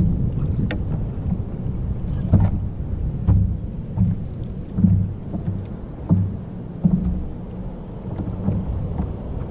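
Water slapping and knocking against the hull of a small boat on a light swell: uneven low thumps and rumbling, with a few sharp ticks.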